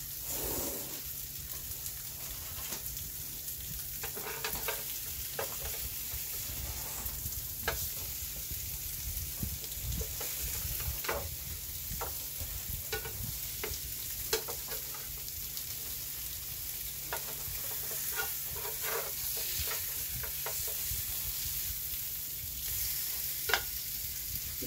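Seasoned salmon fillets sizzling steadily in melted butter on a round indoor electric grill. Short clicks and scrapes of a metal spatula against the grill plate come throughout as the fillets are turned over.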